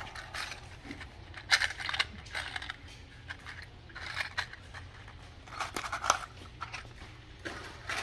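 Small metal crimp-on wire connectors and their plastic and card packaging handled in the hands, making scattered light clicks and rustles over a low steady hum.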